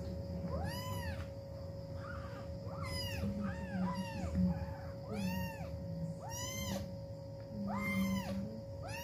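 Kittens mewing over and over: about a dozen short, high-pitched calls that rise and fall, one after another.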